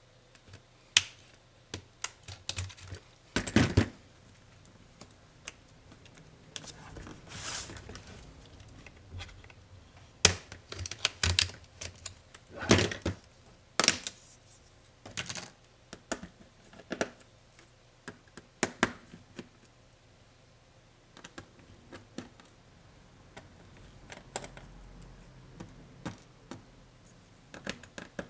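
Irregular clicks, taps and knocks of small Lenovo ThinkPad Yoga 260 laptop parts and tools being handled during disassembly, with a short rustling scrape about seven seconds in.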